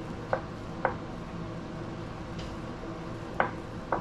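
A utensil stirring thick vegetable shortening in a glass bowl, clinking against the glass four times: two taps in the first second and two more near the end.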